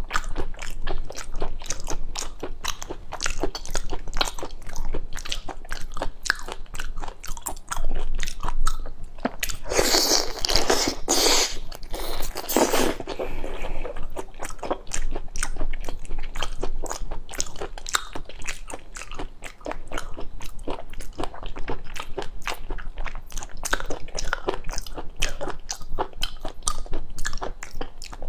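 Close-miked mouth sounds of a person biting and chewing raw prawn meat soaked in soy-sauce marinade: rapid, irregular clicks of chewing, with a louder, denser stretch about ten seconds in that lasts a few seconds.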